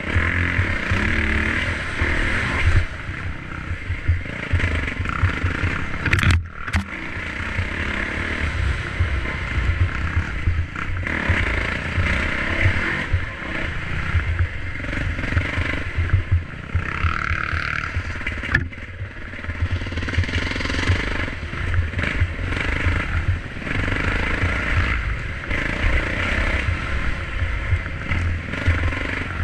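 Dirt bike engine running while riding a sandy single-track trail, its sound rising and falling, with a brief drop about six seconds in and again near the middle. A heavy, uneven rumble of wind on the microphone sits under it.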